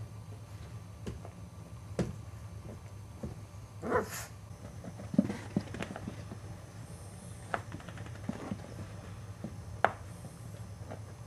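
Boxer puppies playing: scattered scuffles, paw taps and small knocks over a steady low hum. There is a brief, louder high sound about four seconds in and a dull thump just after five seconds.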